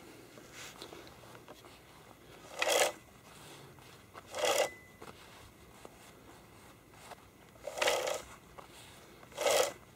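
Saw chain pulled around its guide bar by hand in four short strokes, each a brief rattling rasp of about half a second, spaced about two seconds apart: the chain is being spun to check its tension and feel for binding.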